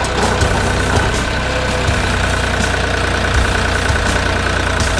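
Fumetsu 30 HP tractor's 1.6-litre three-cylinder diesel engine running steadily at low revs, with a steady high whine over it.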